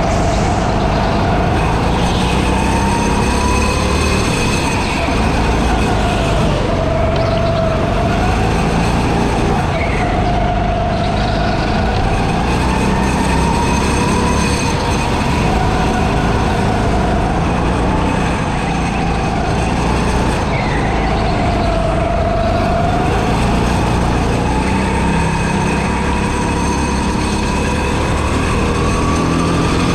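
Go-kart running at speed through a lap, its motor tone rising and falling over a few seconds at a time as it speeds up on the straights and slows for the corners, over a steady rumble.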